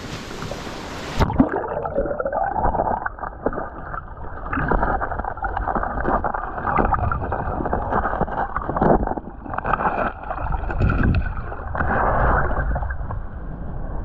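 Stream water in a pool below a waterfall, heard underwater. About a second in, a thump as the microphone goes under, and the sound turns muffled: a rumbling, gurgling wash of moving water with irregular knocks and bumps.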